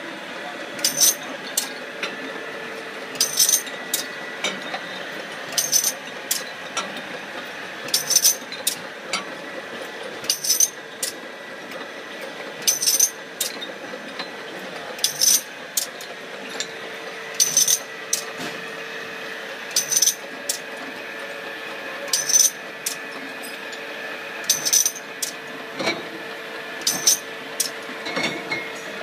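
Automatic beer rinser-filler-crowner running: a steady machine hum with a faint whine, and brown glass bottles clinking against each other and the steel guides in short clusters roughly every two and a half seconds.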